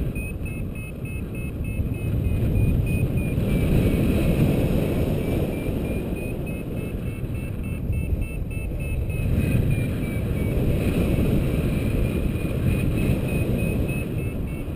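Wind buffeting the camera microphone in paraglider flight, a low rush that rises and falls in loudness. Over it a paragliding variometer sounds a thin electronic tone, at times as short rapid beeps and at times held steady, shifting slightly in pitch; the beeping is the vario's signal of climbing air.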